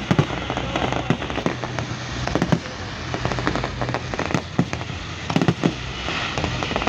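Fireworks going off in a rapid, uneven run of sharp cracks and pops over a constant rumble of further bursts.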